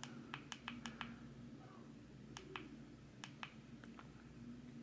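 Faint clicks of the G1WH dashcam's menu buttons being pressed: a quick run of about six presses in the first second, then a few more spread out later, over a faint low hum.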